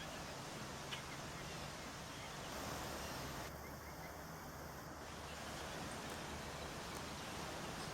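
Faint outdoor background noise with a steady low hum underneath and a single click about a second in.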